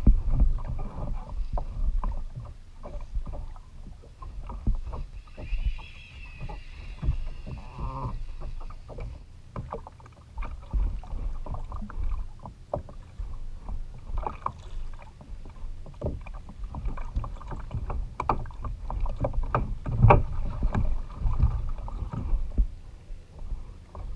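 Sea water slapping and splashing against a pedal fishing kayak's hull, with irregular knocks and bumps against the hull.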